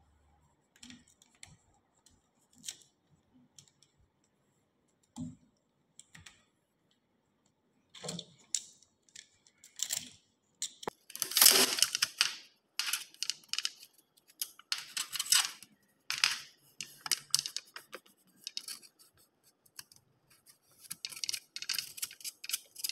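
Thin aluminum sheet cut from a soda can being handled and taped: sparse faint crinkles and clicks at first, then louder, denser crinkling from about eleven seconds in.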